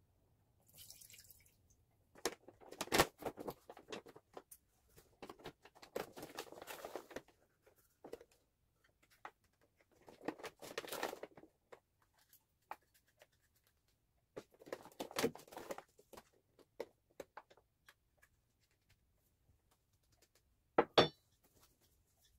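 Kitchen handling sounds in short separate bursts: red wine poured into an enamel pot, then a plastic bag of sugar rustling as sugar is scooped out and poured in with a small paper cup. A sharp double knock comes near the end.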